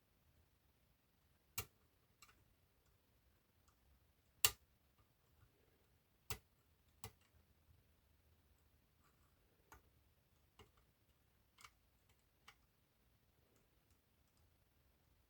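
Lock picks working the levers of an eight-lever lever lock: about nine sharp clicks, spaced irregularly and a second or so apart, the loudest about four and a half seconds in, with near silence between them.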